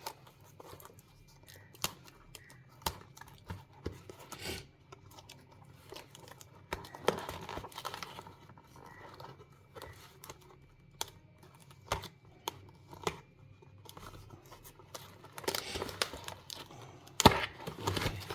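Packaging of a replacement laptop keyboard being torn open and unwrapped: irregular tearing and crinkling with scattered sharp clicks, the loudest a sharp knock near the end.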